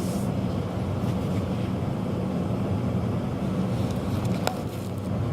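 Gas water heater burners firing at full heat, a steady low rumble of flame, with a single sharp click about four and a half seconds in.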